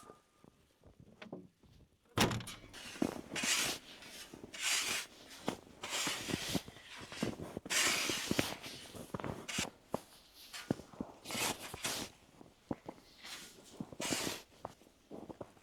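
Footsteps crunching through fresh snow, a string of uneven crunches about one to two a second, starting about two seconds in.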